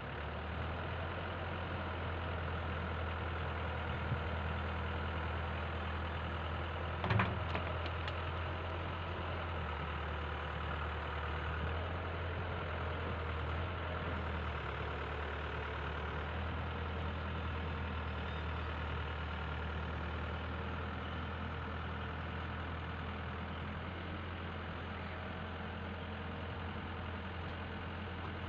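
Wheel excavator's diesel engine running steadily with a low hum, with one short clank about seven seconds in.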